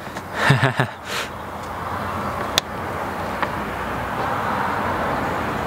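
A brief burst of voice near the start, then a car's engine and tyre noise building steadily louder, with a single sharp click in the middle.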